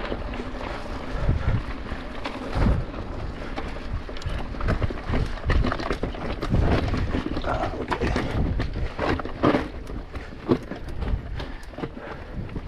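Mountain bike rolling fast over a dirt forest trail: steady tyre and drivetrain noise with the bike rattling, and many sharp knocks as it runs over roots and bumps, more of them in the second half.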